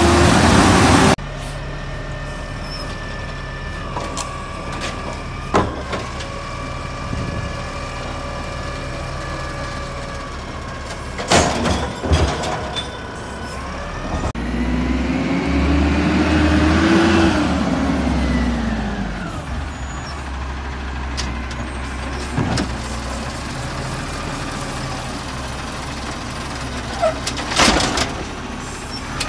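Garbage truck at work: a loud air-brake-like hiss that cuts off about a second in, then the diesel engine running steadily. In the middle the engine revs up and back down, and sharp clanks sound a few times.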